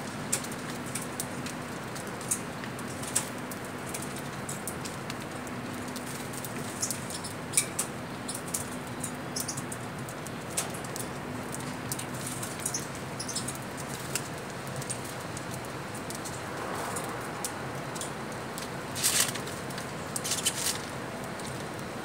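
A flock of small caged finches feeding: scattered short, high chirps and clicks with fluttering wings, with a louder flurry near the end, over a faint steady hum.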